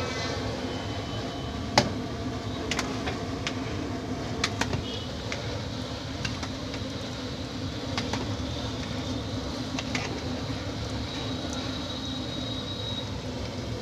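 Steady roar of a gas burner under a large pot of boiling water, with basmati rice parboiling in it. The steel skimmer knocks against the pot several times, the sharpest knock about two seconds in.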